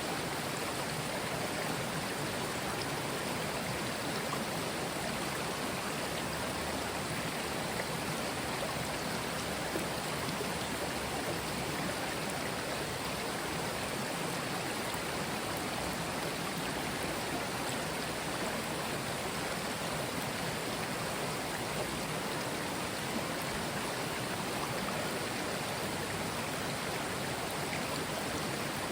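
Mountain stream flowing over stones: a steady, even rush and babble of water.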